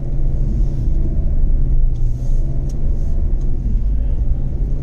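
Car engine and road noise heard from inside the cabin while driving: a steady low engine hum.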